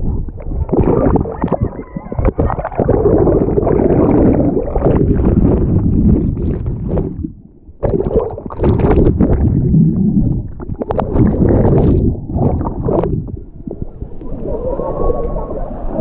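Fast water in a water-park rapids channel churning and splashing right against an action camera that dips in and out of the water. The sound turns to a muffled underwater rumble when the camera is submerged. It dips briefly about halfway through, then comes back loud.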